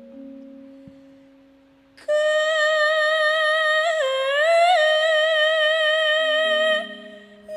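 A sinden, a female Javanese singer, sings one long held note through a microphone, with a swoop up in pitch in the middle, over quiet gamelan notes. Her voice comes in loud about two seconds in and stops shortly before the end.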